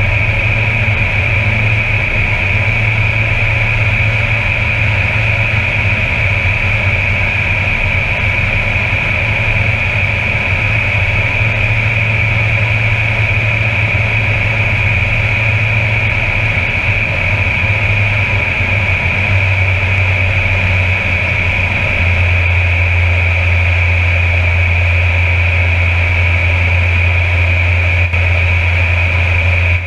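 Air Tractor 402B's Pratt & Whitney PT6A turboprop engine and propeller at takeoff and climb power, heard from inside the cockpit: a steady high turbine whine over a deep propeller drone. The drone shifts and turns smoother about two-thirds of the way through.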